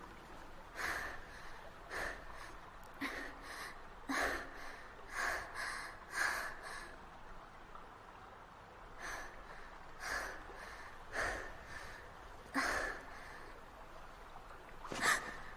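A girl's heavy, ragged breathing: short gasping breaths roughly once a second, pausing for a couple of seconds midway.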